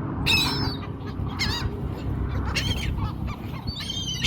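Seagulls calling: four short, harsh calls about a second apart, each bending in pitch.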